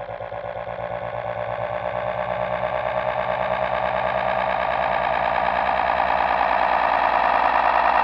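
Sound effect: a rapid pulsing, rattling drone at about six pulses a second, steadily growing louder.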